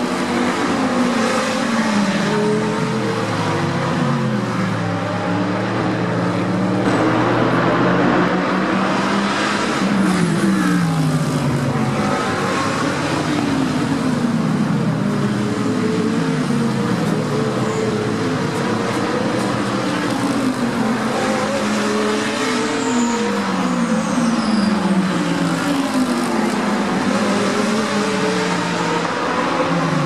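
A pack of GT3 race cars, among them an Audi R8 LMS, Lamborghini Huracán GT3s and a Mercedes-AMG GT3, passing close one after another through a corner: each engine note drops as the car brakes and downshifts, then climbs again as it accelerates out, overlapping in a continuous run of engines.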